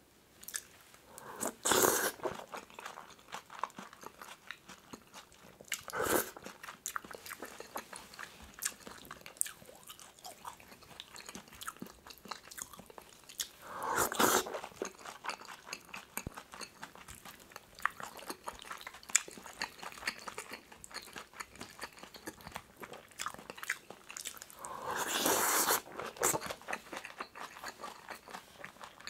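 Close-miked chewing and wet mouth sounds of eating a mix of pork kimchi stew, rice and seasoned seaweed flakes, with many small clicks and louder bites about 2, 6, 14 and 25 seconds in.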